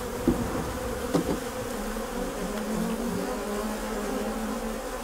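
A colony of honeybees buzzing in a steady, dense hum over an opened hive, with a couple of brief louder buzzes in the first second and a half.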